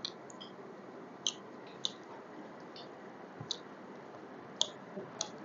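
Close-mic eating sounds of someone chewing pork biryani: faint, irregular short mouth clicks and smacks, about nine over the few seconds.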